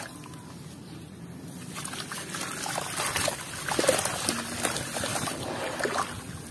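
Hands squeezing and crumbling a soaked block of sandy mud under water in a plastic basin, with water sloshing and dribbling. The wet crumbling grows busier with many small crackles from about two seconds in.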